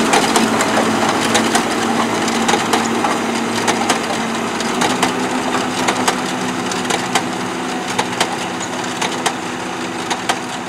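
MTZ-952 tractor's turbo-diesel engine running steadily under load while pulling an SN-4B four-row potato planter, whose working mechanism gives off irregular clicks and rattles. The sound slowly gets quieter as the tractor moves away.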